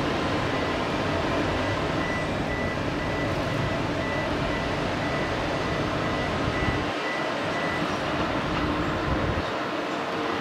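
Diesel locomotive running as it rolls slowly along the track, a steady engine rumble, with a thin high tone pulsing on and off through most of it.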